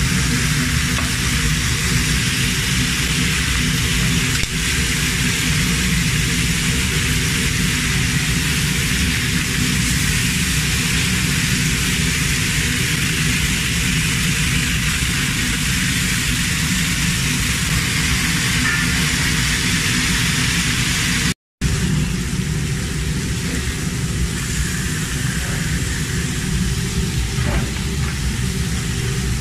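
Beef ribs sizzling on a hot grill, a steady hiss over a constant low mechanical hum. The sound cuts out for a moment about two-thirds of the way through.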